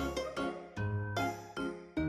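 Background music: a melody of clear pitched notes, each starting sharply and fading, about two notes a second.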